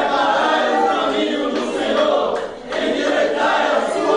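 Men's gospel choir singing a Portuguese hymn together, with a brief break past the middle before the voices come back in.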